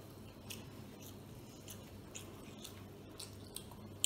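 Faint eating sounds of a person eating biryani by hand: scattered small wet clicks and smacks of chewing and of fingers picking food off a banana leaf, over a low steady hum.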